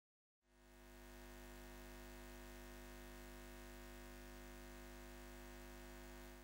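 Faint, steady hum of many held tones at once, close to silence. It fades in about half a second in and fades out at the very end.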